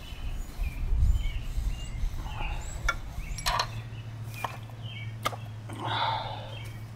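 Birds chirping in short repeated notes in the background, with several sharp clicks and knocks from handling the fish gear and a burst of low wind rumble on the microphone about a second in.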